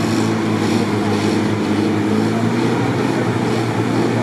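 GAZ-69 off-roader's engine running at a steady drone while the vehicle works through a sticky bog.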